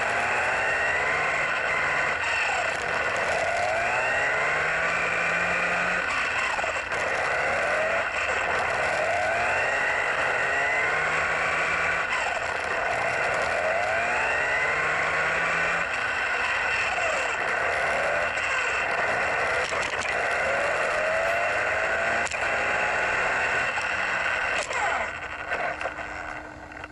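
Onboard sound of a WLtoys 104001 RC buggy driving hard on asphalt. The electric motor and drivetrain whine rises in pitch again and again with each burst of throttle, over a steady hiss and rumble. Near the end it slows and the sound falls away as the buggy stops.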